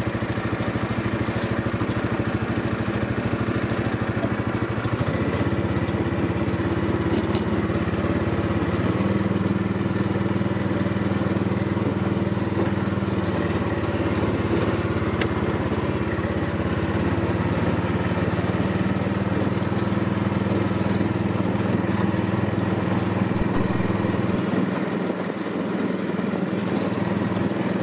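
Yamaha G2 golf cart's small engine running steadily, its pitch shifting up a few seconds in and dropping back near the end.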